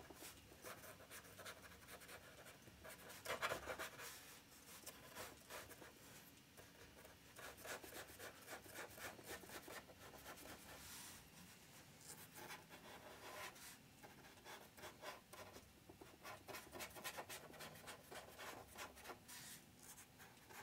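Faint strokes of a brush pen tip rubbing and brushing on paper, many short strokes one after another, with a louder pass about three seconds in.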